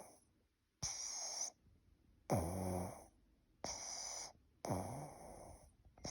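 Snoring in a quick, even rhythm: hissing breaths alternate with deeper snores that drop in pitch, about five sounds in six seconds.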